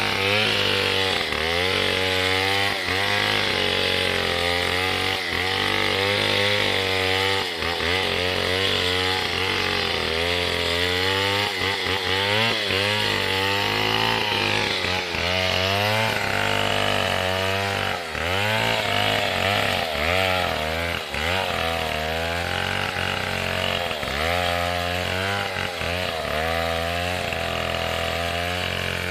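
Stihl 070 two-stroke chainsaw running throughout, its engine speed wavering up and down every second or so.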